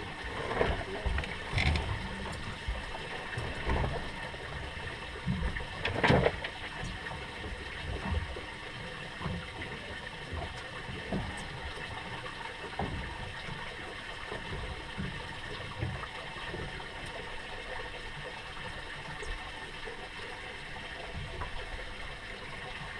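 Water slapping and lapping against the hull of a small fishing boat lying still, with a few sharp knocks and clatters of gear being handled on deck in the first six seconds, the loudest about six seconds in.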